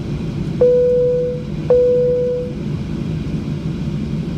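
A two-stroke chime in the cabin of a Boeing 737-800: two identical dings about a second apart, each ringing out and fading. Under it runs the steady rumble of the cabin while the jet taxis on its CFM56-7B engines.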